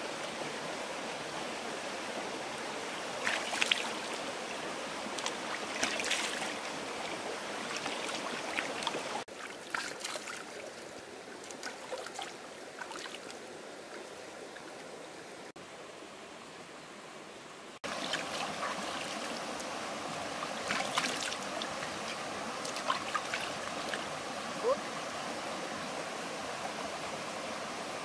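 Shallow rocky stream running steadily, with a few short splashes from hands working in the water.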